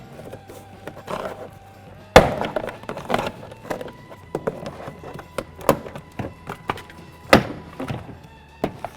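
Plastic door panel push-pin clips snapping loose as a trim removal tool pries the panel away from the door. There are two loud snaps, about two seconds in and again near seven seconds, among lighter clicks and knocks.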